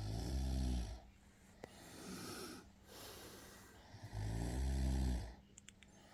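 A sleeping boy snoring: two loud, low-pitched snores about four seconds apart, each lasting about a second, with softer breathing between them.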